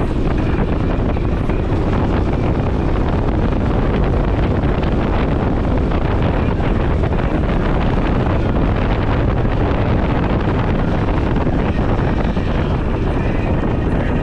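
Steady, loud wind rushing over the microphone, an even unbroken roar.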